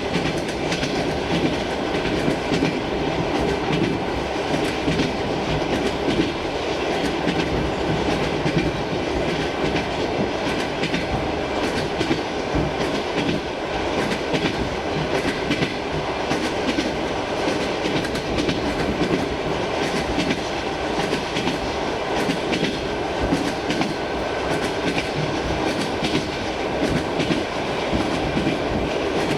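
Inside a moving suburban electric train: a steady rumble of the carriage, with the wheels clicking and clattering over the rail joints.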